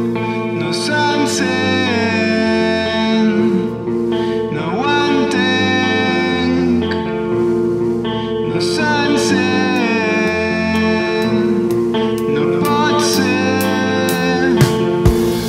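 Music: a rock song with a sung vocal line over held guitar chords.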